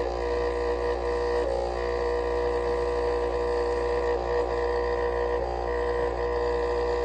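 Dental laboratory vibrator running with a steady droning hum, shaking freshly poured Velmix die stone into a dental impression to drive out trapped air.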